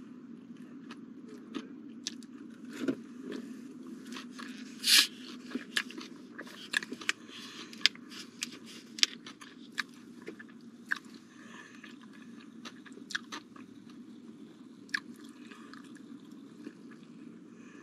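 Close-miked mouth sounds of a man chewing a honey barbecue chicken wrap: scattered wet clicks and smacks, busiest in the middle, with one sharper, louder burst about five seconds in. A low steady hum runs underneath.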